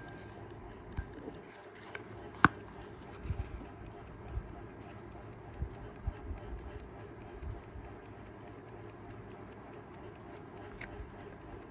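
Kaiser 4 Rubis travel alarm clock's mechanical movement ticking quickly and evenly, about five ticks a second: the balance wheel is beating and the clock is running again. A single sharp click stands out about two and a half seconds in, with a few soft low knocks after it.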